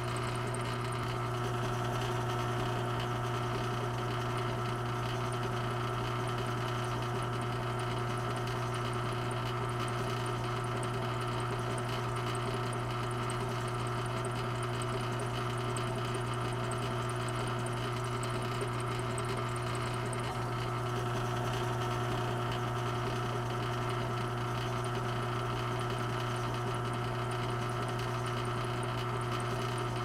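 Steady mechanical hum of an air-conditioning unit running, with a strong deep drone and several steady higher tones that hold constant throughout.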